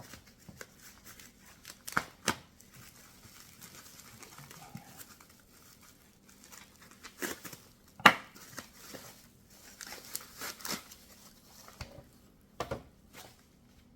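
Packaging being torn open and crinkled while a part of the bike repair stand is unwrapped, with a few sharp knocks of parts being handled, the loudest about eight seconds in.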